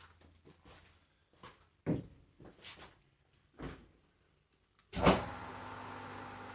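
A few clunks, then about five seconds in a rotary phase converter is switched on: a loud thump as it starts, settling at once into a steady electrical hum.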